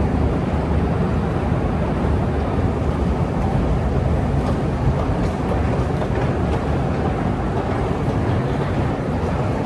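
Steady low rumble of an underground metro station, with escalators running and trains in the tunnels.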